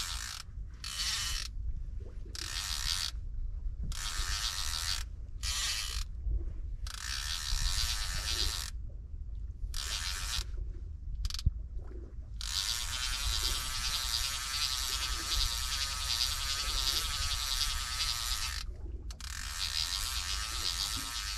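Baitcasting fishing reel ratcheting while a hooked fish fights on the line: on-and-off bursts of a second or so, then a steady run of about six seconds past the middle and another near the end.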